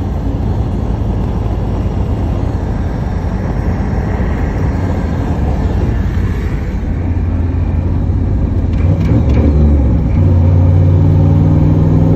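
Pickup truck engine running loud under way on the highway, heard from inside the cab. About eight seconds in it grows louder, and the engine note shifts, then stays at the higher level.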